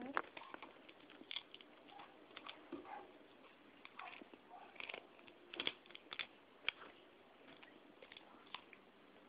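Faint, irregular clicks and rustles of small objects being handled, with a few louder ticks around the middle.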